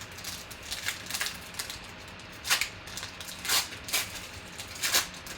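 Football trading cards being handled and slid across one another, a series of short rustling swishes, the loudest about two and a half, three and a half and five seconds in.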